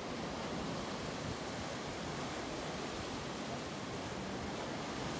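Sea waves washing and churning against rocks below, a steady rushing noise with no distinct breaks.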